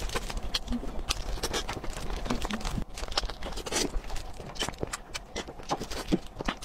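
Close-miked mukbang eating sounds: wet chewing and lip-smacking of hard-boiled eggs coated in spicy sauce, a quick irregular run of moist clicks and smacks.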